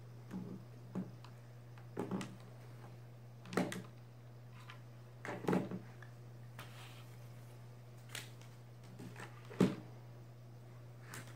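Plastic toy train track pieces knocking and clicking as they are handled and fitted together on a wooden table: about eight irregular knocks a second or two apart, the sharpest near the end. A steady low hum underneath.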